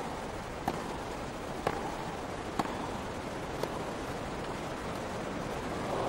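Tennis rally: a racket striking the ball with a sharp pock about once a second, four or five times, over a hushed crowd.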